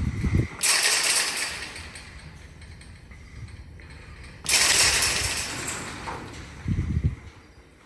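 Metal hog-trap panels or gate crashing and rattling as penned wild hogs slam into them. There are two loud crashes, about a second in and halfway through, each fading over a second or so, with dull thuds at the start and near the end.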